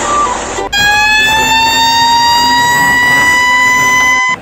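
Background music for a moment, then a single siren-like tone that slowly rises in pitch for about three and a half seconds and cuts off suddenly just before the end.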